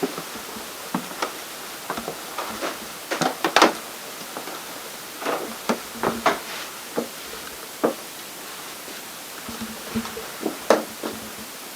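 Irregular knocks and clicks over a steady hiss, the loudest about three and a half seconds in and again near the end.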